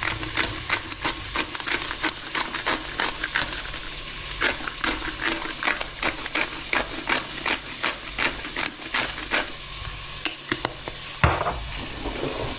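Hand pepper mill being twisted, grinding in quick regular clicks about four a second that thin out to a few after about nine seconds. Under it, smoked bacon sizzles gently in oil in a pan.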